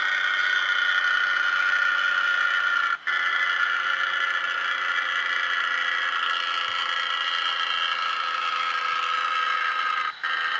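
Air trumpet horn of the ship-horn type giving one long, steady, high-pitched blast of several tones at once, its pitch sagging slightly, broken off for an instant about three seconds in and again near the end.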